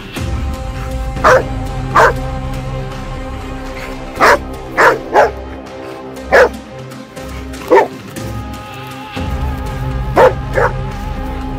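Dog barking in single sharp barks, about nine times at uneven intervals, over steady background music.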